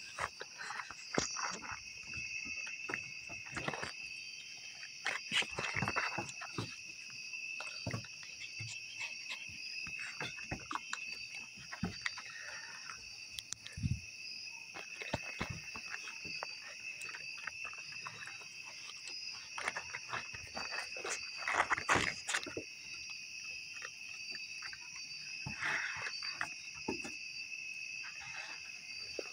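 A steady, high-pitched chorus of night insects, with irregular scratching, rustling and clicking from baby raccoons moving about on a wooden deck and over a person's clothes. The handling noises come in clusters and are loudest around a fifth of the way in and again about two-thirds of the way through.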